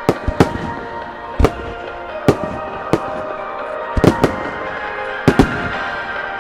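Aerial fireworks shells bursting in a starmine barrage, about nine sharp booms at uneven intervals, with music playing throughout.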